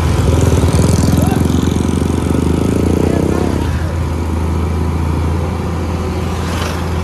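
Diesel engine of a Niigata NFB6C asphalt paver running steadily at work. A second, rapidly pulsing engine is loud over the first half and dies away about halfway through.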